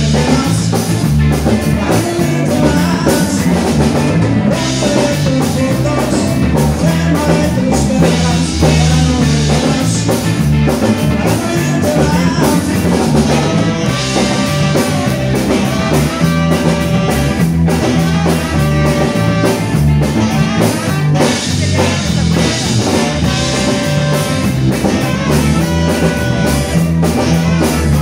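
Live rock band playing through a PA: drum kit, bass and electric guitar keeping a steady beat, with trumpet and saxophone lines that come through more strongly from about halfway.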